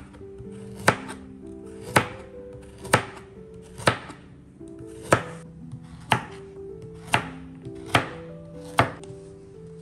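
A knife slicing a carrot into rounds on a plastic cutting board: nine even chops, about one a second.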